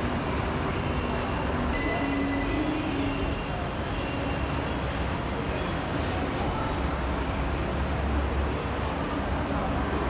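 Steady ambience of a busy Skytrain station platform: a low, even rumble with a faint hubbub of voices.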